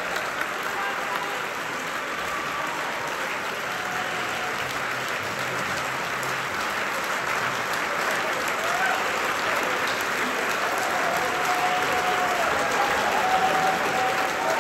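Audience applauding steadily, the clapping swelling slightly toward the end.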